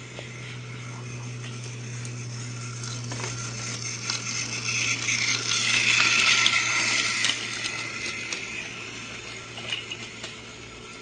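A small motor-driven mechanism running with a steady low hum and a dense clicking rattle, which swells louder around the middle and then eases back.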